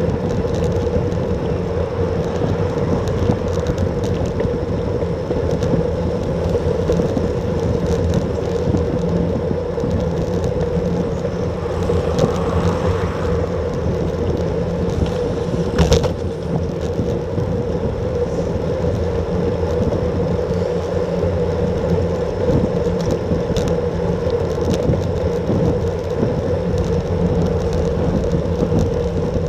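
Steady wind and road noise from a road bike riding at speed, picked up by a bike-mounted action camera, with one sharp click about sixteen seconds in.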